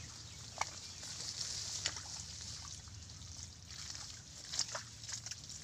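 Hands squelching and sloshing in wet mud and shallow water, with a few short wet clicks over a steady low hum.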